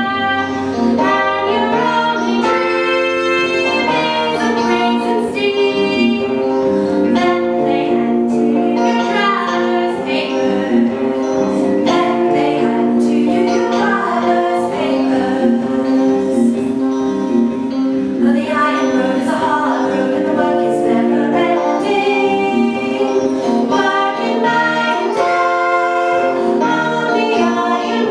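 Music with singing voices holding long notes, several pitched parts sounding together and changing every second or two.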